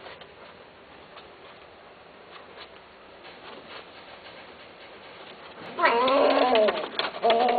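Cats mating: after a fairly quiet stretch, a cat lets out a loud, wavering yowl about six seconds in, then a second one just over a second later, the typical caterwauling cry of a mating pair.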